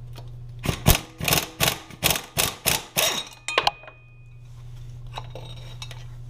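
Hand ratchet on a long extension working a stock motor mount bolt on a Toyota 1JZ engine loose: about nine quick clicking strokes, then it stops. A steady low hum runs underneath.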